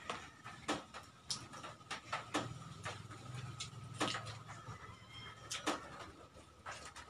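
People eating with their hands: chewing and mouth smacks, heard as irregular sharp clicks about once a second, over a faint steady high hum.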